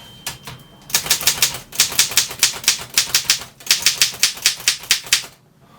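Seidel & Naumann Ideal office typewriter being typed on at a quick, even pace. The type bars strike the platen about six times a second, with a brief pause a little past halfway, and the typing stops shortly before the end.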